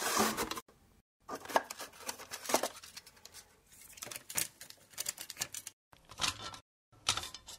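Sound-designed handling noises: a run of close clicks, rattles and rustles as a wooden box and a metal film reel are handled and the reel is fitted onto a projector. They come in several bursts cut off abruptly by moments of dead silence.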